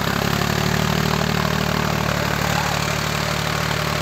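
John Deere 5310 tractor's three-cylinder diesel engine running steadily under load, a continuous low drone as the tractor strains against a taut pulling rope.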